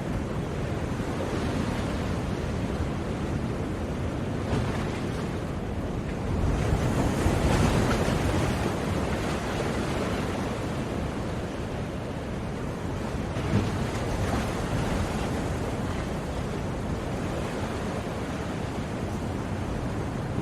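Sea surf: waves breaking and washing ashore in a steady rush, one wave swelling louder about seven seconds in.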